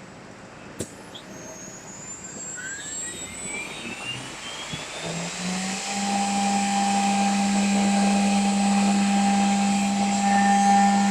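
Woodworking mortise and tenon machining center motors starting up: a sharp click, then a whine rising in pitch for a few seconds. The machine then runs at speed with a steady hum and whine over a rushing noise, growing louder.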